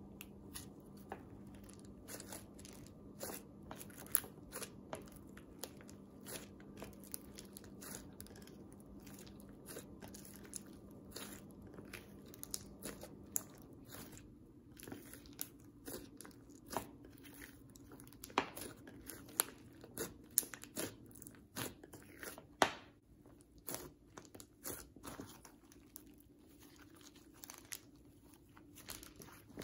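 Slightly overactivated clear slime being kneaded by hand with small plastic beads in a bowl, then stretched: faint, irregular clicks and crackly pops from the slime and beads.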